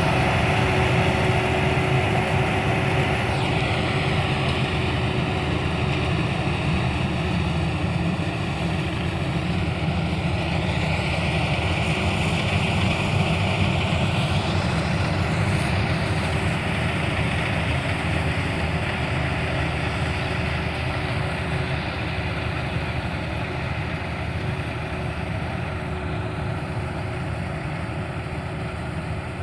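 AgriMac100 combine harvester running steadily, a dense machine drone with a strong low hum, slowly getting quieter.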